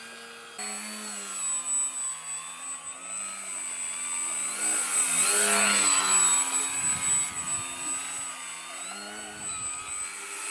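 Electric motor and propeller of a foam Nutball RC plane whining, the pitch rising and falling with the throttle as it manoeuvres low. It is loudest as it passes close about halfway through.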